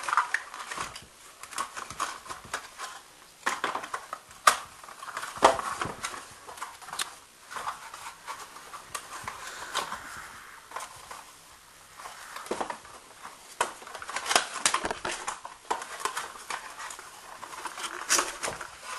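Cardboard packaging being handled: a webcam's cardboard insert and box flaps pulled, flexed and scraped, with scattered clicks, rustles and a few louder knocks.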